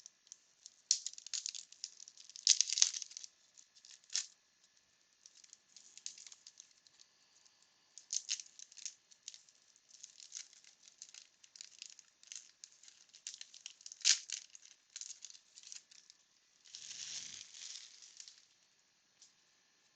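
A wax-paper baseball card pack being opened and its cards handled: faint, irregular crinkling of the wrapper and light clicks of card stock, with a longer rustle near the end.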